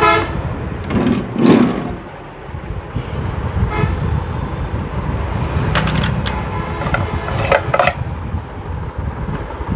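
Road traffic with vehicle horns tooting in several short blasts over a steady traffic noise.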